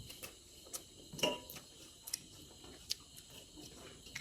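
Faint eating sounds: a few short, sharp clicks and smacks while chicken is being eaten.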